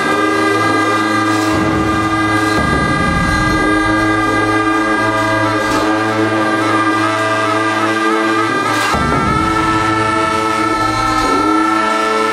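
Tibetan Buddhist monastic ritual music: long held horn tones over a low drone, shifting pitch a couple of times, with a few widely spaced strokes on large frame drums (nga) and cymbals.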